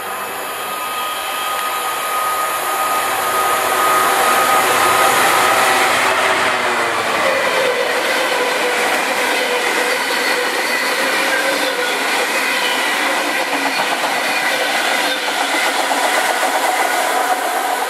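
A convoy of Class 66 diesel-electric freight locomotives passes, their two-stroke V12 engines running with a steady drone. It grows louder over the first few seconds, then holds steady as the locomotives go by.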